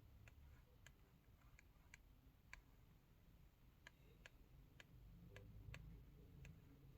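Near silence with faint, light clicks, about a dozen at uneven intervals, over a low hum.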